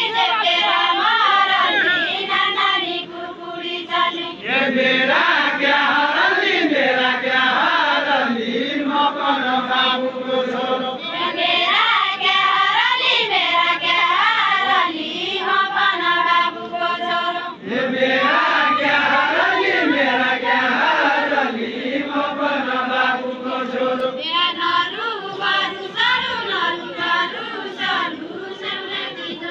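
A group of men chanting a deuda folk song together, the Far-Western Nepali sung circle dance, in long sung lines with brief pauses between them.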